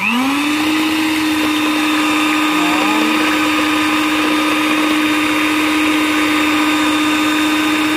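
Electric hand mixer switched on and running steadily, its beaters whisking eggs and sugar in a ceramic bowl. The motor's whine rises to pitch in the first half second, then holds steady with a rushing hiss over it, rather noisy.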